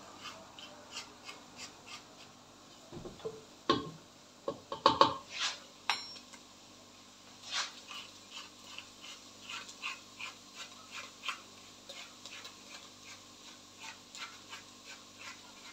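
Hand-twisted spice grinder being turned over a pot, giving a long run of small dry clicks at a fairly even pace of two to three a second. A few louder short squeaks stand out about four and five seconds in.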